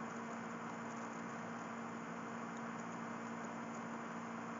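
Steady low background hiss with a faint electrical hum: the recording's own line noise, with no speech.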